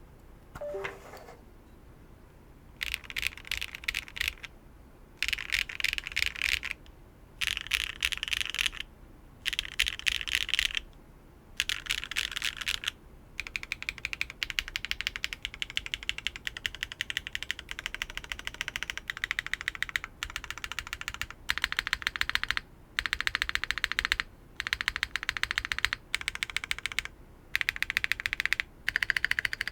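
Mechanical keyboard being typed on quickly: a TKD Cycle 8 tenkeyless board fitted with HMX Lunar Stone linear switches. The typing comes in runs of a second or two with short pauses, then goes on almost without a break from about midway.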